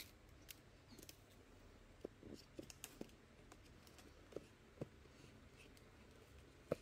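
Small metal blade slitting the plastic shrink wrap on a cardboard box: faint, irregular clicks and light scrapes of blade on plastic and cardboard, with a sharper click near the end.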